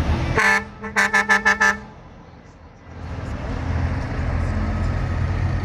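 A truck horn gives one short blast, then five quick toots in a row, over the low rumble of passing vehicle engines. The rumble drops away for about a second after the toots, then comes back.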